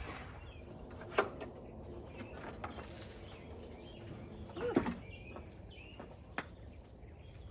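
A few scattered knocks and bumps, the middle one joined by a short falling squeak, over faint bird chirps.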